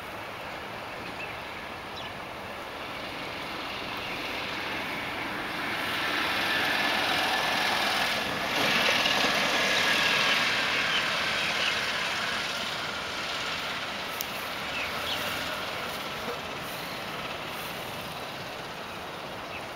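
A small motor vehicle driving past. Its engine and road noise grow over a few seconds, are loudest around the middle, and fade away again.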